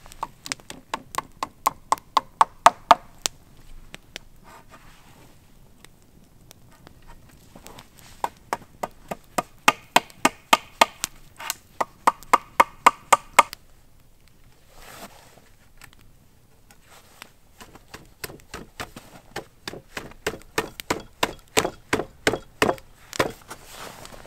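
Wood being chopped with quick, even blows, about four a second, in three runs of a few seconds each with pauses between.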